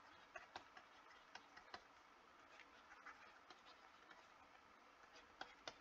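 Faint, irregular clicks and taps of a stylus on a drawing tablet as a circuit diagram is drawn, about a dozen in all, over near silence.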